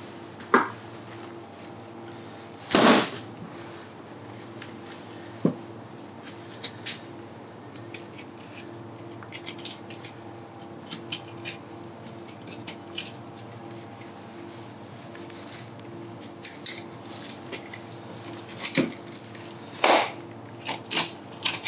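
Knife cutting meat off the bone of a goat-lamb shoulder on a plastic cutting board: scattered short knocks and brief scrapes of the blade and meat against the board, more frequent near the end, over a steady background hum.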